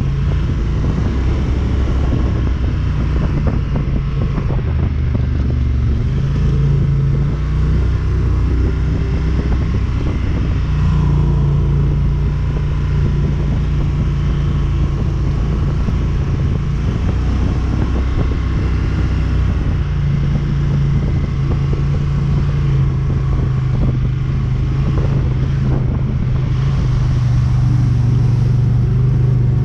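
ATV engine running under way, its pitch stepping up and down with the throttle over a steady low rumble.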